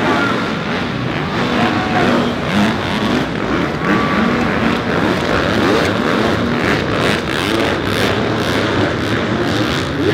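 Several motocross bikes' engines running hard around the arena track together, their pitch repeatedly rising and falling as the riders open and close the throttle.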